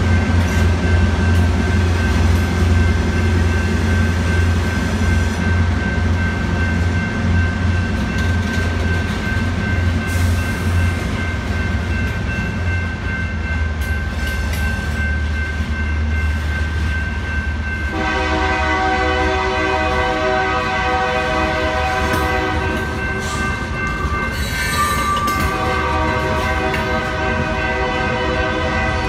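A freight train of boxcars rolling through a grade crossing with a steady low rumble and wheel clatter, while the crossing's electronic bell rings. About two thirds of the way through, a train horn comes in with a loud held chord, breaks off briefly, then sounds again.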